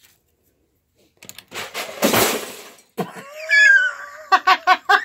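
Loose Lego bricks clattering and rattling against each other for about a second. Then a short, high wavering call and, near the end, a quick run of short pulsed vocal sounds.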